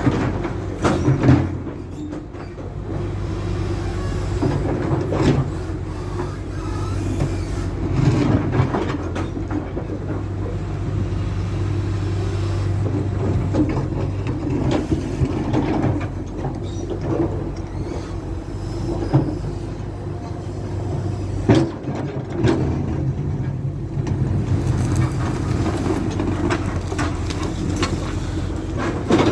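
Hydraulic excavator's diesel engine running steadily under load, with the bucket knocking and scraping against broken asphalt, giving sharp clanks every few seconds.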